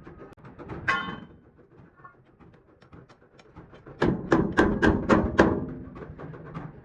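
Hammer blows on a dented metal truck fuel tank as it is beaten back into shape: one ringing strike about a second in, then a quick run of six strikes about four seconds in.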